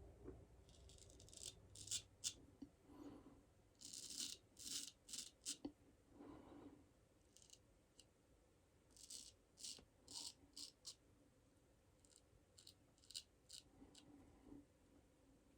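Straight razor scraping through stubble in short strokes, coming in quick runs of several with pauses between; faint.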